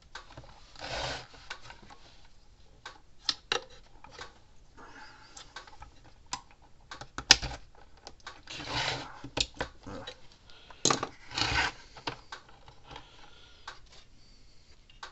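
Needle-nose pliers working insulated crimp connectors onto terminal tabs in a plastic fence-charger case: scattered small clicks and taps, one sharper click midway, and a few short scraping rubs.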